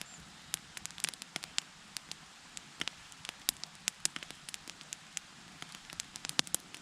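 Wood campfire crackling: irregular sharp pops and snaps, several a second, over a faint steady hiss.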